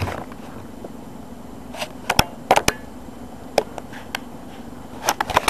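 A few scattered sharp knocks and taps over a quiet background.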